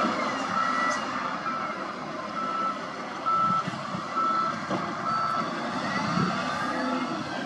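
SDLG wheel loader reversing: its back-up alarm beeps steadily about once a second over the rumble of its diesel engine.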